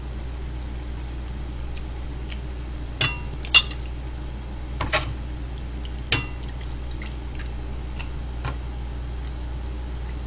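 Metal ladle clinking and scraping against a metal pot and a bowl as stew is ladled out: a few sharp ringing clinks, the loudest about three and a half seconds in, over a steady low hum.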